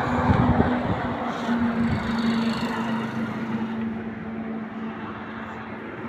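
Ashok Leyland 2518 truck drivetrain running with a steady hum that slowly fades, with a few knocks in the first second. This is the crown wheel and pinion noise being diagnosed.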